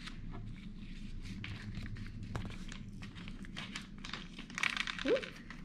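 Small clear plastic seed bag crinkling as it is handled and held open, a run of short crinkles that grows denser about five seconds in. A brief rising squeak comes near the end.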